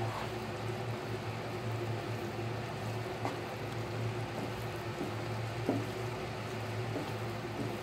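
Wooden spatula stirring thick wheat halwa round a nonstick pan, with a few faint knocks of the spatula, over a steady low hum. The halwa is at its finishing stage, with the ghee starting to separate out.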